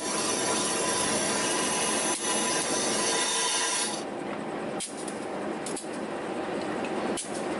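Compressed air hissing at a train's brake-hose coupling as the hoses between the locomotive and the first carriage are joined. The hiss cuts off about four seconds in, leaving a steady rush with a few light metal clicks.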